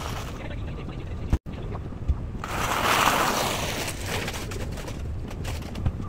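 Wind buffeting the microphone as a steady low rumble, swelling into a louder rush about two and a half seconds in. The audio cuts out for an instant shortly before that.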